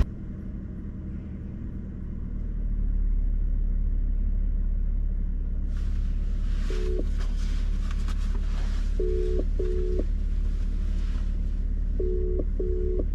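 Steady low rumble inside a car's cabin, growing louder a couple of seconds in, with short electronic beeps: one single beep, then two pairs of beeps.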